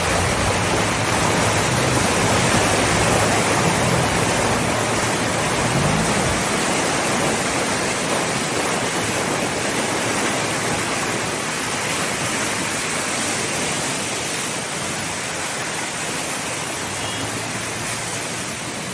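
Loud, steady rush of water, easing off slowly, with a low hum under it for the first few seconds that rises in pitch about six seconds in.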